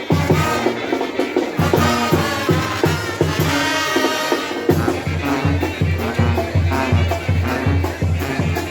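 Live band music with melody instruments and drums; a steady drumbeat comes in strongly about five seconds in.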